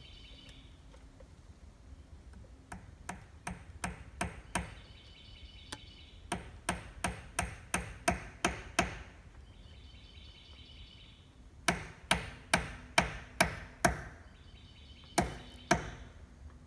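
Hammer blows nailing up soffit at the eave, in four runs of quick, evenly spaced strikes with short pauses between them.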